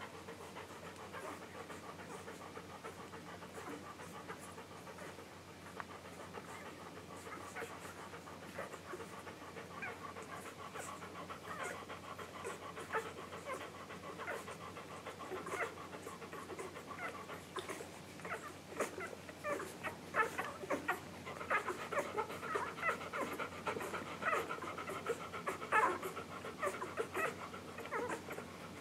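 Week-old English golden retriever puppies nursing: quick, wet sucking and smacking sounds that run on in an uneven patter. They grow busier and louder in the last third.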